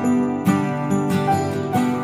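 Background music: sustained pitched notes over a steady beat of bright, jingly strikes.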